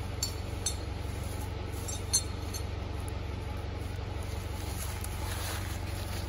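John Deere 440 skidder's diesel engine idling steadily, with three light clinks in the first two seconds.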